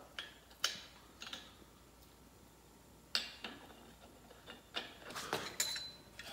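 A few light, separate metal clicks and clinks as a backup washer and spindle nut are fitted onto a race-car spindle through a Burt big-bearing hub, one near the end briefly ringing.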